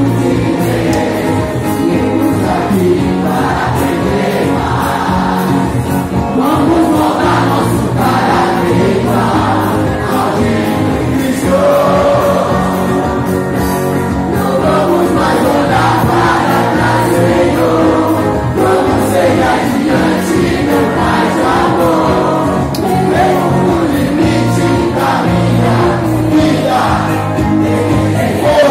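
A large crowd of young people singing a team war-cry song together in unison over backing music with a steady bass line.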